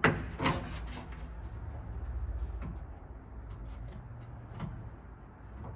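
Screwdriver clicking and scraping on metal inside a car door's inner panel while prying at the window regulator's small round retaining clips. Two sharp clicks come right at the start, the second the loudest, followed by a dull rumble of handling and a few fainter ticks.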